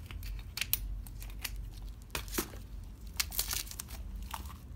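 Clear plastic wrapping being snipped with scissors and crinkled as it is pulled off a porcelain tea-set piece: a run of short, irregular crackles and snips.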